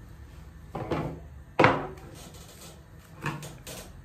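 Dull knocks and thumps of a plastic-wrapped mosaic cake log being pressed and tapped against a wooden tabletop to square its sides. About six short knocks come at uneven intervals; the loudest is a little over a second and a half in, with a quick cluster of three lighter ones near the end.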